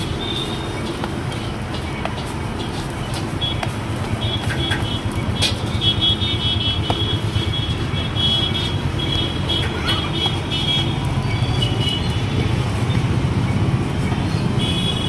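A metal spatula scraping and tapping on a large flat iron tawa as pav buns toast, with short sharp clicks. Underneath is a steady low rumble of street traffic.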